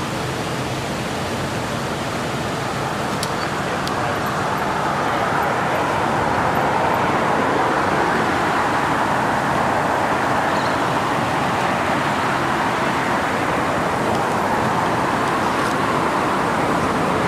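Steady road-traffic noise, a continuous rush of passing vehicles that swells a little a few seconds in and then holds.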